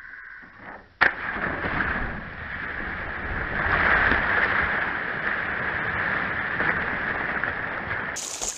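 A sudden splash about a second in as a jumper hits the water, then several seconds of rushing, churning water and spray, loudest a few seconds after the splash.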